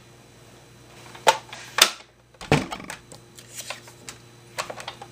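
A Sizzix Big Shot die-cutting machine and its plastic plates being set down and handled on a craft table: two sharp knocks a little past one second in, another about half a second later, then lighter scattered clicks and clatter.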